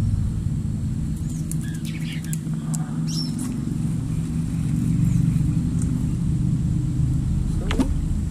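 An engine running steadily with a low, even hum, with a few short bird chirps over it.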